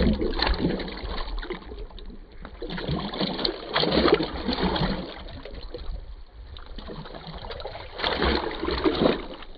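Rubber plunger pumped up and down through clothes in a bucket of soapy water: water sloshing and splashing in bursts, with spells of harder plunging about four seconds in and near the end. This is hand agitation of laundry in a two-bucket manual washing machine.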